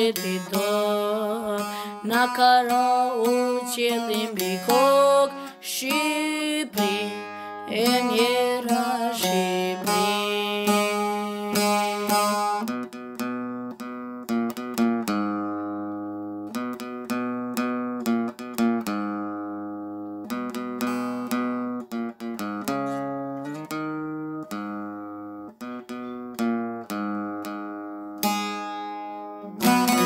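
An Albanian folk elegy: a boy sings a wavering lament melody over a plucked string accompaniment, then about twelve seconds in the voice stops and the plucked string instrument plays on alone, each note ringing and fading.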